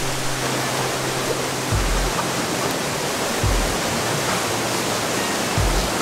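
Steady rush of flowing water from a forest stream, under background music whose low bass notes change every second or two.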